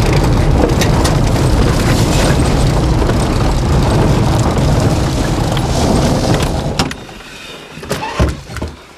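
Small car driving fast, with engine and road noise heard from inside the cabin. About seven seconds in the noise drops off as the car stops, and a couple of clunks follow as the driver's door opens.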